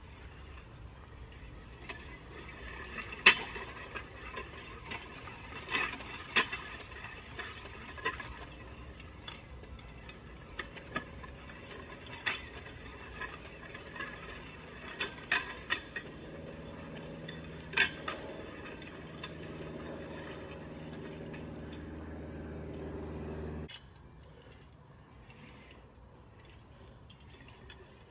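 Weight sled loaded with about 300 lb of steel plates being dragged on wet pavement: scattered sharp metal clanks and clicks from the plates and frame over a rough scraping. Past the middle a low steady hum joins in and cuts off suddenly a few seconds before the end.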